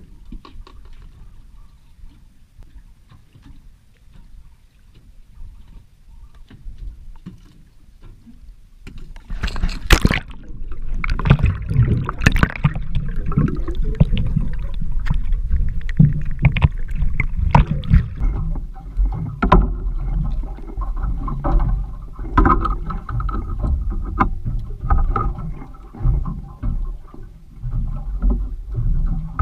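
Sea water sloshing and rumbling around a boat-mounted action camera. It is faint at first, turns suddenly loud about nine seconds in as the camera goes under the surface, and a steady droning tone joins later.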